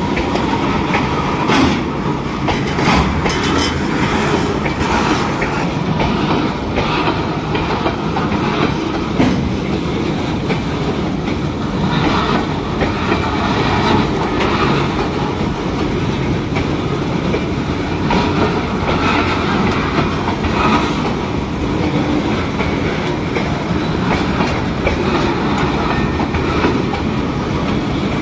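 Freight train of steel hopper wagons rolling past at close range: steady noise of steel wheels on the rails, with sharp clicks and clanks as the wheels cross rail joints, most frequent in the first few seconds.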